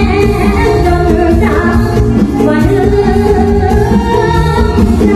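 A young girl singing a Thai song into a microphone over a loud backing track, amplified through a stage PA.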